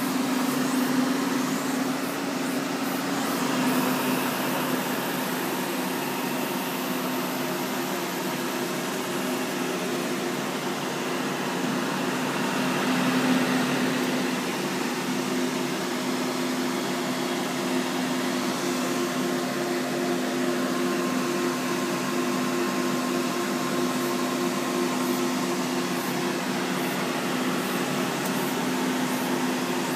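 Cooling fans in an outdoor telecom equipment cabinet running with a steady whir and an even hum.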